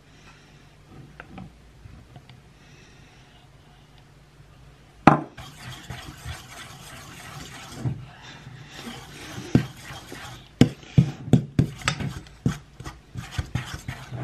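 Metal spoon stirring and scraping in a stainless steel mixing bowl: quiet at first, then a sharp knock about five seconds in, followed by a dense run of clinks and scrapes of metal on metal.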